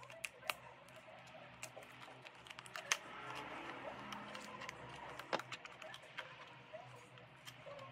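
A small cardboard cosmetics box and its paper insert being handled and unfolded: sharp clicks of fingernails and cardboard, with denser rustling of the packaging from about three seconds in.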